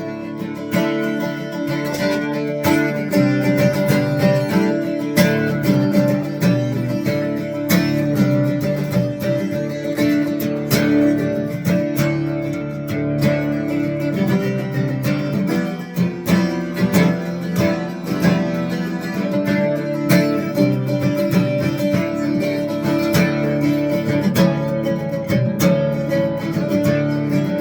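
Twelve-string acoustic guitar in drop D tuning, played as a continuous run of picked riffs and strummed chords.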